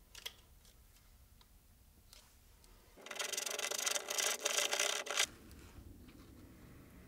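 A small tool scraping and stirring briskly on a sheet of paper for about two seconds, starting about three seconds in: glue being mixed for a knife handle.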